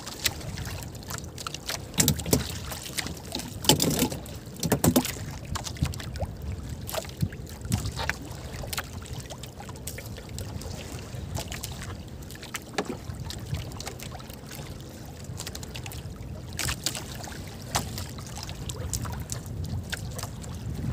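Wind and water against a small outrigger fishing boat at sea, with scattered light knocks and clicks as the hook and line are handled in the boat, a few louder ones about two and four seconds in.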